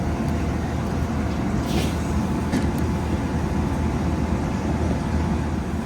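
Randell one-door upright freezer running with a loud, steady low rumble, with a couple of brief faint rustles about two seconds in.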